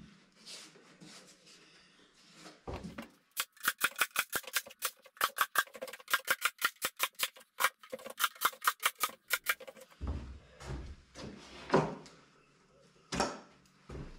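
Cordless nail gun firing a rapid, even series of sharp shots into MDF, about six a second for some six seconds, followed by scattered knocks and handling of the boards.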